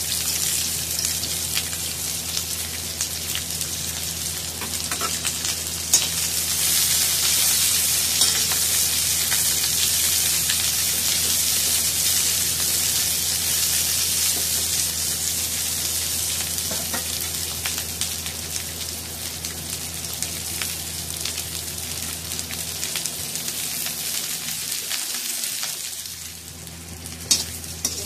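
Onion pieces sizzling in hot oil in a steel kadai, stirred with a metal spatula that scrapes and knocks against the pan. The sizzle dips briefly near the end, followed by a few sharp spatula knocks.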